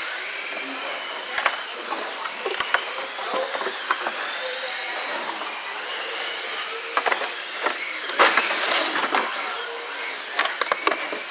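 Cardboard packaging being handled, with scattered clicks, scrapes and knocks as side cutters work at the zip ties holding an RC buggy in its tray. The clicks come thicker about seven to nine seconds in and again near the end, over a steady hiss.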